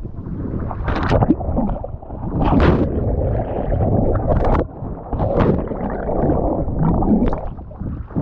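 Water splashing and sloshing around a kayak as the paddler capsizes and rolls back up, in several irregular splashes over a steady low rumble.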